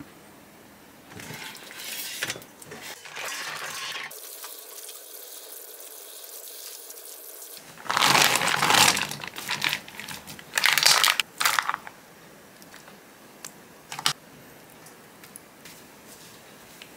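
Kitchen sounds: water splashing in bursts, with rustling and a sharp click near the end.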